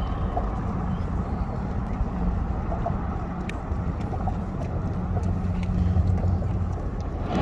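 Steady low engine drone over a rumbling haze, swelling slightly about six seconds in.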